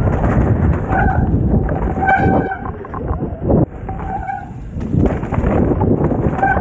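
Mountain bike descending a muddy trail: steady rumble of tyres through mud and wind on the camera microphone, with about four short honking squeals from the wet disc brakes as the rider brakes.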